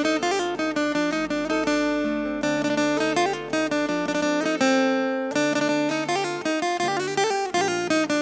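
Background music: an acoustic guitar plucking a melody of short, ringing notes over a steady bass line, with no singing.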